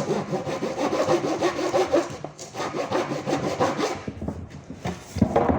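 Small hand saw meant for plywood cutting a wooden board in quick back-and-forth strokes, stopping about four seconds in. A single knock follows near the end.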